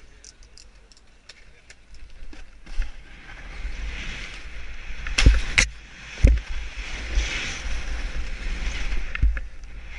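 Snowboard sliding and scraping over packed snow, heard from a board- or helmet-mounted camera with wind buffeting the microphone. The rush builds from about two seconds in, with several heavy thumps past the middle and one more near the end.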